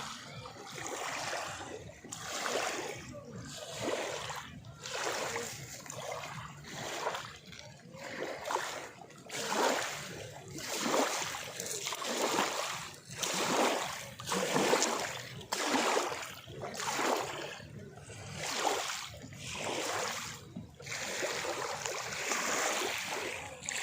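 Water splashing in a regular rhythm, one rushing surge about every second and a half.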